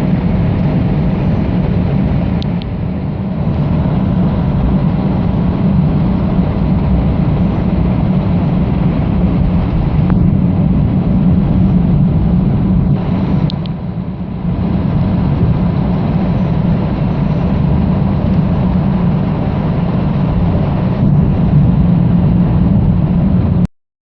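Mercedes-Benz OM 457 LA inline-six diesel engine of an Irizar i8 / Mercedes-Benz OC 500 RF coach running steadily with a deep rumble, dipping briefly twice, then cutting off abruptly near the end.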